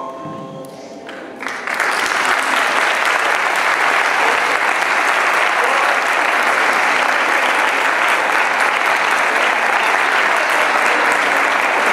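A last musical note dies away, then audience applause breaks out about a second and a half in and keeps up steadily.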